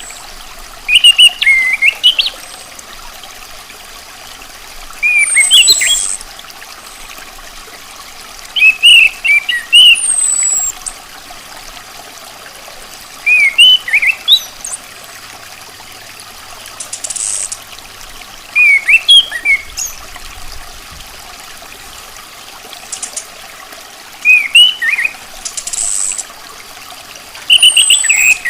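Chestnut-capped thrush (anis kembang) calling in short phrases about every four seconds: each a high falling whistle and a quick cluster of chirpy lower notes. A steady trickling-water background runs under the calls.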